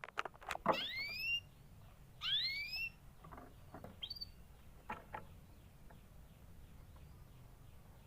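Canary calling: two upward-sweeping whistled calls in the first three seconds, then a couple of short chirps. There are a few sharp clicks at the start and around five seconds in.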